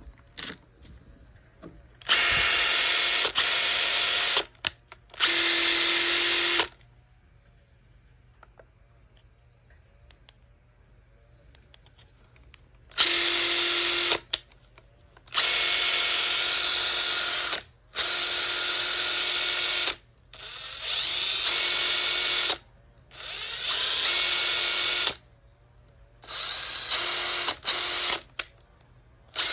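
Makita TP141D 18V cordless 4-mode impact driver running free with no load. It runs in about eight short trigger bursts of one to two seconds each, with pauses between them, as a running check after it was taken apart and cleaned.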